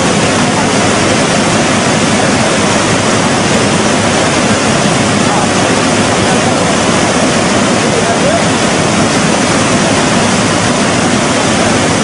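A swollen, flooded river rushing: a loud, steady wash of water noise without a break.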